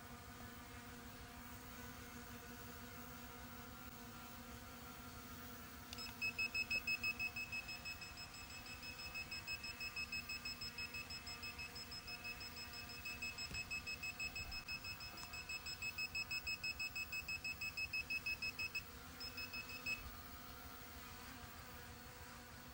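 Small quadcopter drone hovering, its motors giving a faint steady hum. About six seconds in, a fast run of high electronic beeps starts over it. The beeps are the loudest sound; they break briefly and stop for good about fourteen seconds later.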